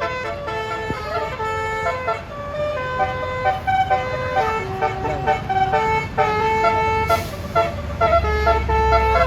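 A tour bus's basuri telolet horn playing a tune in quick stepped notes. A bus engine rumbles low under it, louder near the end.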